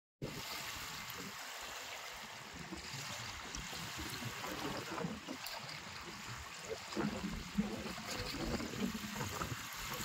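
Small waves lapping and splashing at the muddy shore of a reservoir, a steady watery wash.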